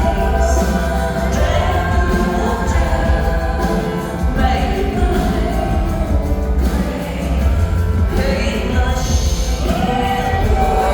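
Live concert music: a woman singing over a full instrumental backing with a strong, steady bass.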